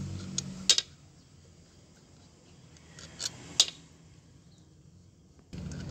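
Small steel nuts and washers clinking as they are spun off the studs of a truck's rear axle shaft flange by hand. A few sharp metallic clicks come in two clusters, about a second in and again around three seconds in.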